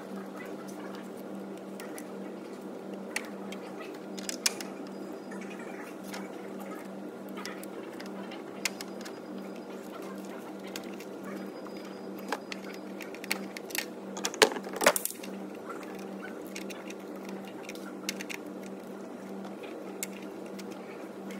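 A steady hum with light clicks and knocks scattered through it, and a cluster of sharper knocks about two-thirds of the way in: hand work on parts in a car's engine bay.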